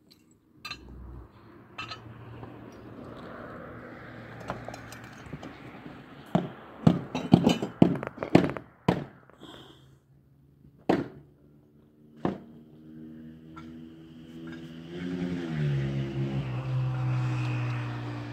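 A series of sharp knocks and clinks, some in quick succession, of hard objects struck or handled. About two-thirds through, a motor starts running with a steady hum, rises in pitch, then holds.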